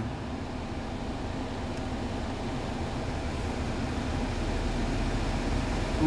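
Tesla's climate-control blower fan ramping up in auto mode with the air conditioning on, heard inside the car's cabin: a steady rush of air with a low hum that grows gradually louder as the fan speed climbs.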